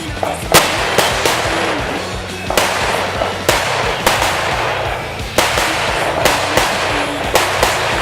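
A string of about a dozen rifle shots from a .223 AR-15-type rifle, fired at uneven intervals, each with a short echo. Background music with a steady beat plays under them.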